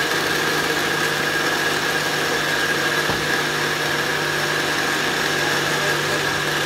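Panasonic countertop blender motor running steadily, blending a watery paste of shallots, onion and lemongrass, with an even hum that holds one pitch.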